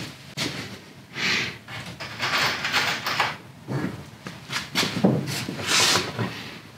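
Cordless drill/driver running in several short bursts, driving screws into a plywood baseboard.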